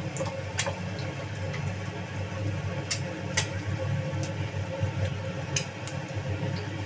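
Quail eggs frying in oil in a nonstick pan: a faint sizzle with a handful of sharp pops and ticks, over a steady low hum.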